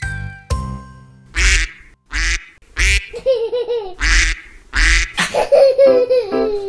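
Duck quacking: five loud, short, raspy quacks spread over a few seconds, over light children's music.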